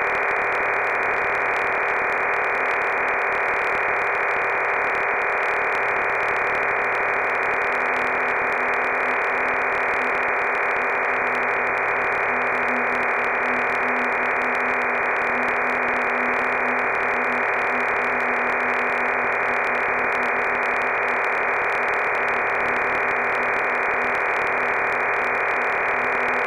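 Steady radio static: an even, narrow, tinny hiss with faint steady whistles and a low wavering hum inside it, unchanging throughout.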